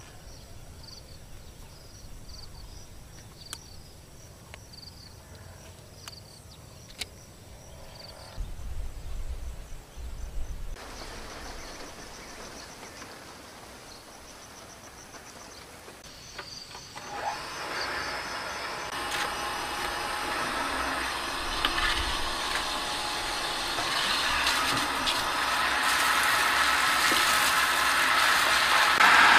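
Quiet outdoor background with faint high chirps. A little past halfway, an electric water pump's motor is heard running, a dense mechanical noise that grows steadily louder toward the end.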